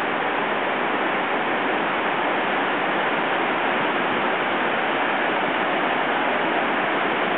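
The Devil's Throat cascade at Iguazu Falls: a huge volume of water falling, heard as a loud, steady, dense rush that does not let up.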